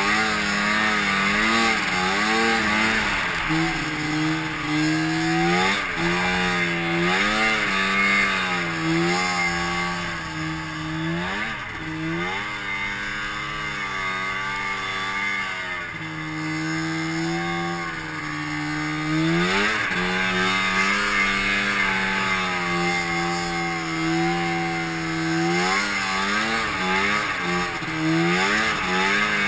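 2005 Arctic Cat M7 snowmobile's 700cc two-stroke twin with SLP twin pipes running hard through deep powder, its pitch holding high then dropping and climbing again repeatedly as the throttle is eased and reapplied.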